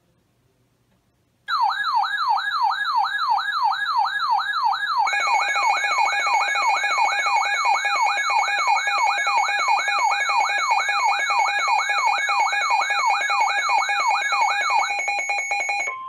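Weather alert radios sounding their alarms for a flood warning: a siren-like tone sweeping up and down about two and a half times a second starts about a second and a half in, and a second radio's steady alert tone joins about five seconds in. Both cut off just before the end.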